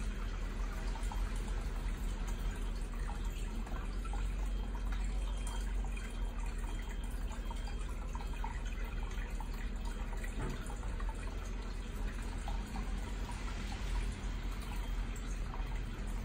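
Aquarium filter outflow trickling and dripping steadily into the tank water, a continuous stream of small splashes.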